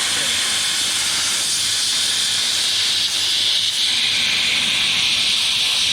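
A plasma cutter cutting steel freehand, with a loud, steady hiss of air and arc.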